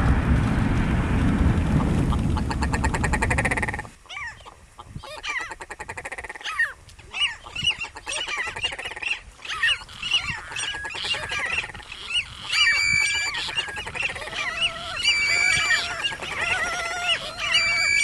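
A steady low rumble cuts off about four seconds in. It gives way to many birds calling in alarm: short, repeated call notes from several birds at once. About two-thirds of the way through, clear held whistles join in, and lower repeated honk-like calls are added near the end.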